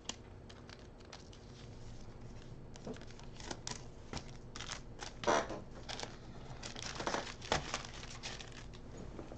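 Foil trading-card pack wrappers crinkling and cards being handled, in a string of short rustles, with the loudest crinkles about five and seven and a half seconds in.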